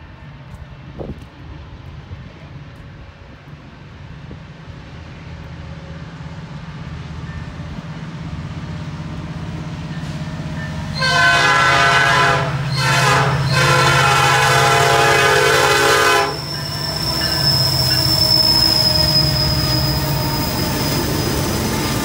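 Freight train approaching: diesel locomotive rumble builds, then the lead locomotive's air horn sounds for about five seconds, broken by brief gaps. As the locomotives draw level, heavy engine noise and a thin steady high-pitched tone follow.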